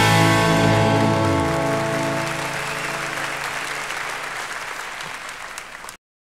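The band's final chord on electric guitars and bass ringing out and dying away, while audience applause swells over it. Everything then fades down and cuts off abruptly just before the end.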